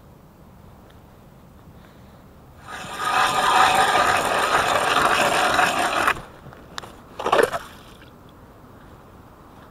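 Zhytomyr hand ice auger cutting a hole through lake ice: about three seconds in, the cranked blades start grinding and scraping steadily for about three and a half seconds, then stop. A second short scrape follows about a second later.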